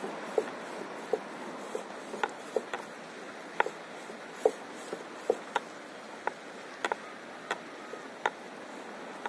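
Small waves lapping against a paddleboard's hull, making short irregular plopping taps about once or twice a second over a steady hiss of sea and wind.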